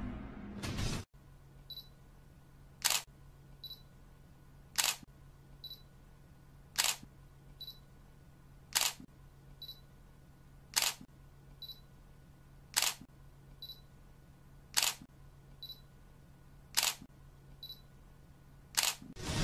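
Music fades out, then a camera shutter clicks at an even pace: one sharp click about every two seconds, each with a fainter click about a second away, over a faint low hum.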